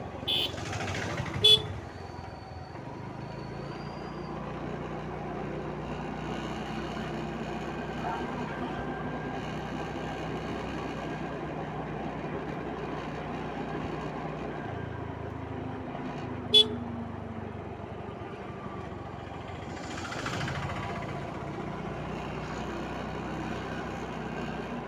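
Motor scooter running steadily on the move, with two short horn toots, one about a second and a half in and another about sixteen seconds in.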